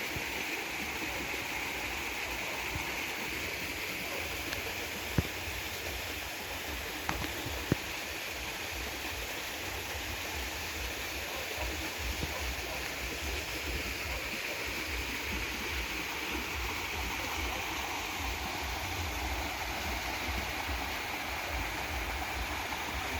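Steady rush of a rain-swollen river running high in flood. A few short sharp clicks are heard about five and eight seconds in.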